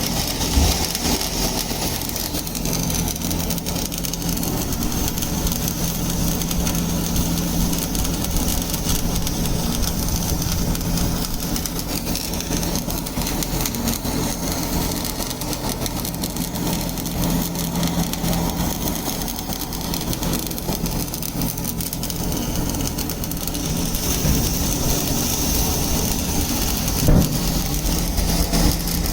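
Steady machine hum with a low drone that does not change much, like an engine or generator running.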